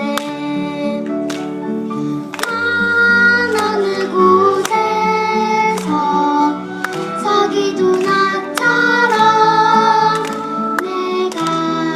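A song performed with singing over instrumental accompaniment and a steady beat, getting louder a couple of seconds in.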